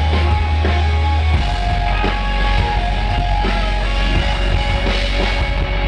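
Live rock band playing loudly through a festival PA: electric guitar, drum kit and a deep held bass note that drops out about a second and a half in.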